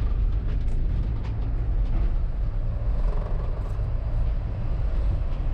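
Steady low rumble of a vehicle.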